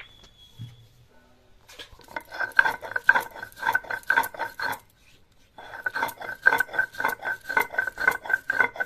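Stone roller rubbed back and forth on a flat grinding stone (shil-nora), grinding poppy seeds into paste: a fast rhythmic stone-on-stone scraping of about three to four strokes a second, in two runs with a short pause about five seconds in.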